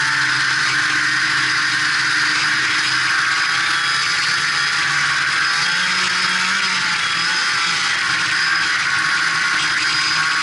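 Polaris Indy Sport 340 snowmobile's two-stroke engine running steadily as the sled travels along the trail, with a brief rise and fall in revs about six seconds in.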